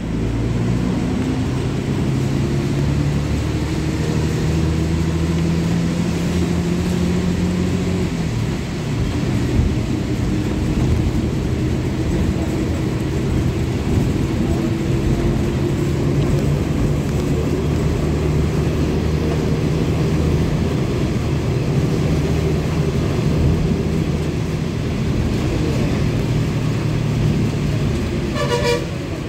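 Steady engine drone and road noise heard from inside a moving vehicle, the engine's low hum shifting in pitch a couple of times as it speeds up and changes gear. Near the end comes a brief pulsing beep.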